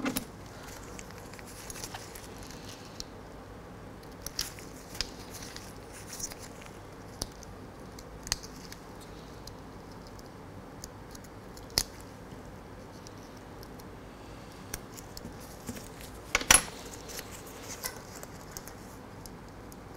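Small scissors snipping into a paper acrylic nail form to cut it deeper so it fits the nail's C-curve, with the form rustling as it is handled. Scattered short snips and clicks, one louder near the end.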